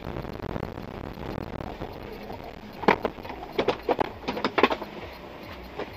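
Car rolling slowly over a dirt road, a steady low rumble that dies away as it comes to a stop. About three seconds in comes one loud knock, then a quick run of short clicks and knocks over the next two seconds, heard from inside the car.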